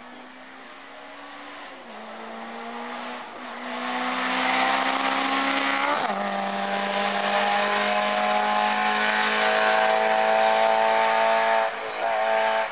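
A race car's engine at high revs, growing louder as it approaches, then dropping sharply in pitch as it passes close by about halfway through. It holds a steady, loud note after the pass until the sound cuts off abruptly near the end, leaving a fainter engine.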